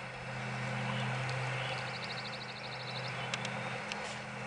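A low steady hum under a light hiss, with a bird's rapid high trill for about a second and a half midway and a few faint clicks near the end.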